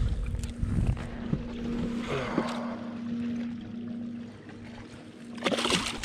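A hooked bass splashing at the surface beside a kayak near the end, over wind on the microphone and a steady low hum.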